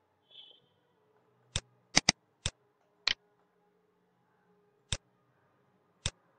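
Computer mouse clicking: seven sharp single clicks at irregular intervals, with a quick double-click about two seconds in.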